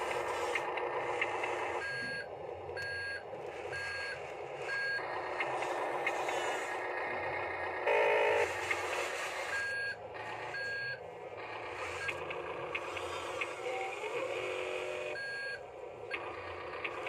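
Huina radio-controlled toy wheel loader's electric drive whirring as it moves, with its built-in reversing beeper sounding about once a second in short runs. A brief, louder tone sounds about eight seconds in.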